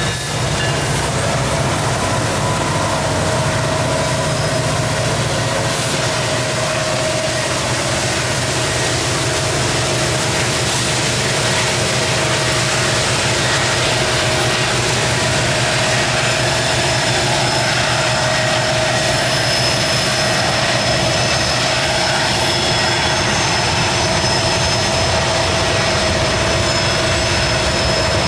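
Freight train passing close by: Norfolk Southern EMD SD70ACe diesel locomotives rumble past and draw away, then covered hopper cars roll by. The rolling noise is steady, with a thin steady tone over it.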